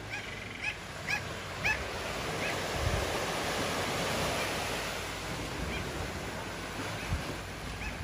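Surf washing onto the shore, swelling in the middle, with a bird giving short high chirps: several in the first two and a half seconds and a few more near the end.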